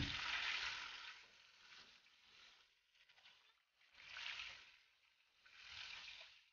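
Faint sizzling of fish steaks frying in oil in a pan, fading away after about a second, then swelling briefly about four seconds in and again near six seconds.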